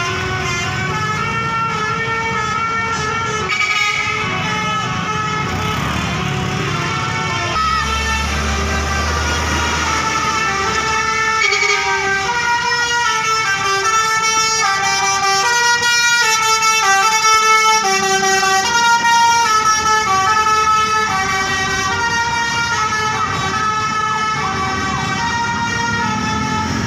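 Bus 'telolet' basuri horn, a multi-tone musical air horn, playing a long melody of stepping notes over the low running of the bus engine. The tune is loudest through the middle of the stretch.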